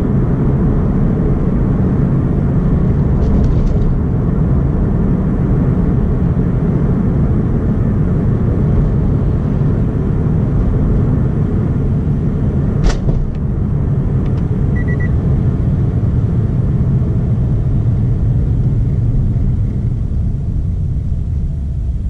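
Cabin noise of a Toyota 86 with automatic transmission while driving: its flat-four engine and the tyres on the road making a steady low rumble. A single sharp knock comes about 13 seconds in, and the noise gets quieter near the end.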